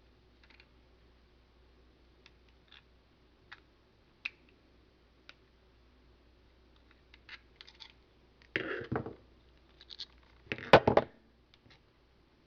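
Needle-nose pliers clicking and scraping against a display-panel mounting bracket while it is being bent. Scattered light clicks are followed, in the latter part, by two louder bursts of clatter about two seconds apart, the second the loudest.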